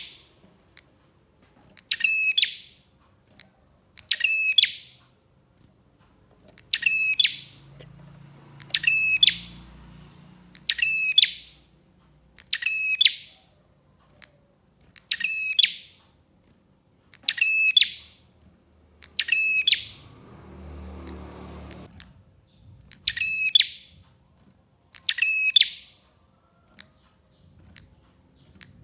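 Prinia (prenjak) calling: a short, sharp, high call repeated about every two seconds, as in a looped bird-lure recording. A brief low rustle sounds about two-thirds of the way through.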